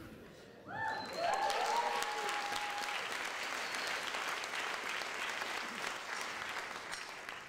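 Audience applauding after a comedy sketch's closing line, starting about half a second in, with a few shouted cheers in the first couple of seconds; the clapping slowly dies away near the end.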